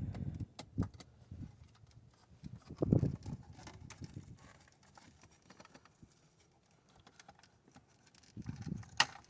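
Scattered light clicks and taps of hands and tools working on a car's dashboard module and its fasteners, with a dull knock about three seconds in and a sharp click near the end.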